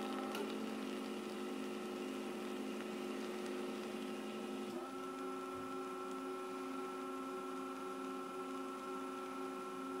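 Tiger bean-to-cup coffee machine's pump humming steadily as it dispenses coffee into a paper cup. Its tone shifts slightly about five seconds in.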